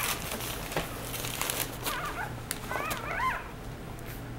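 Newborn Australian Labradoodle puppy crying in short, high squeals that rise and fall, in two little bouts about two and three seconds in. Rustling and small clicks come in between.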